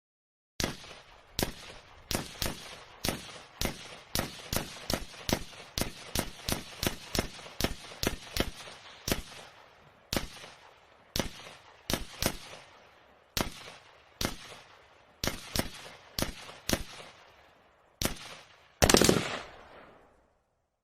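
A long string of pistol shots fired one at a time at an uneven pace, some thirty in all, each trailing off in an echo. Near the end comes one louder, longer blast that fades away.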